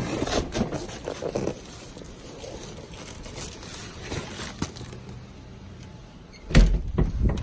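Handling noise of a cardboard shipping box being picked up and carried indoors: scrapes, rustles and knocks of the box and the hand-held phone, ending in a few loud, low thumps.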